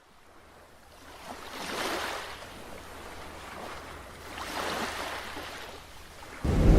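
Ocean surf: waves swelling and washing in twice, a rushing hiss that rises and falls. Near the end a much louder sound with a deep rumble cuts in suddenly.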